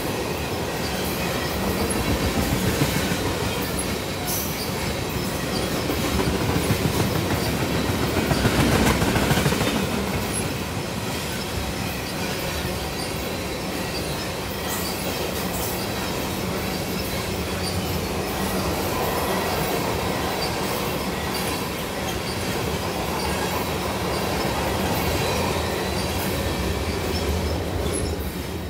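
Freight train of tank cars rolling past close by: a steady rumble of steel wheels on rail, with scattered clicks as the wheels cross rail joints.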